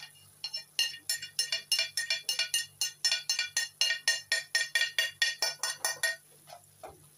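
Rapid, even ringing clinks, about five a second for some five seconds, of a utensil tapping against a ceramic plate to knock sliced onion and chilli off it into a wok.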